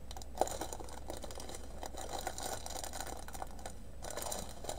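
Plastic packaging crinkling and rustling as a strip of small sealed bags of diamond painting drills is handled and unfolded, with many irregular small crackles and a sharper click about half a second in.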